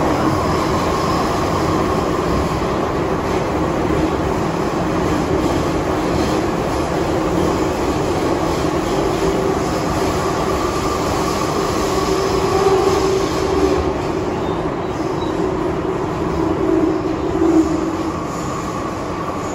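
MTR M-train subway car running, heard from inside the carriage: a steady rumble of wheels on track under a constant whine from the traction equipment, swelling briefly twice in the second half.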